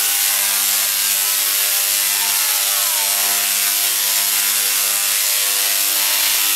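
A 3.5-million-volt Tesla coil firing spark discharges into the air, giving a loud, steady electric buzz at one fixed pitch with a harsh crackling hiss over it.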